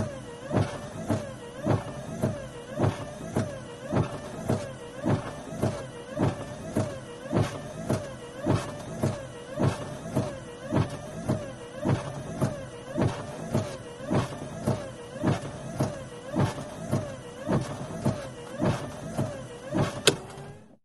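Car windscreen wipers on fast speed, heard from inside the cabin: a steady beat of about two thumps a second as the blades reach the end of each sweep, over the wiper motor's whine rising and falling with each stroke. A sharp click near the end, then the sound cuts off.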